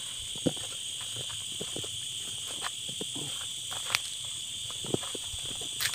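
A steady, high chorus of night insects, with scattered footsteps and short rustles and knocks as people walk through grass and brush.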